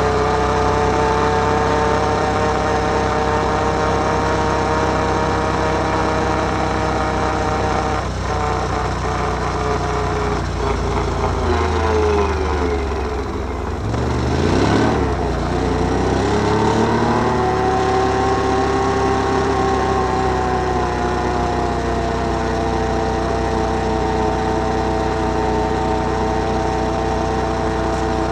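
Can-Am Outlander 1000 ATV's V-twin engine running at a steady speed under way, dropping in pitch as it slows about halfway through, then revving back up and holding steady again.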